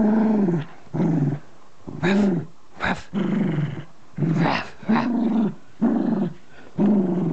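Long-haired dachshund growling in short repeated bursts, about one a second, while tugging on a plush toy: play growling during tug-of-war.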